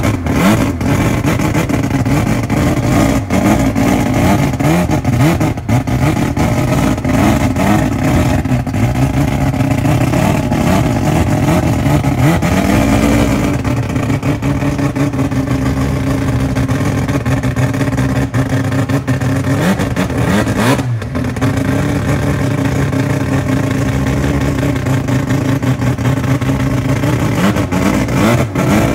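Turbocharged Mazda RX-7 engine running loud and steady, with a few short throttle revs, the clearest about twelve seconds in.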